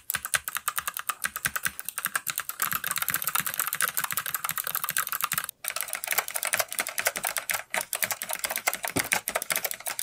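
Rapid typing on a mechanical keyboard, a dense run of key clicks. For the first half or so it is a Keychron C2 fitted with Kailh Box White switches. After a brief break about halfway through, the typing goes on on an old keyboard with white Alps clone switches, which sound very close.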